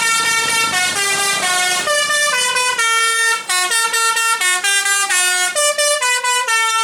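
A bus's telolet basuri musical horn playing a flute-like tune: loud, clear held notes that step up and down in pitch a few times a second.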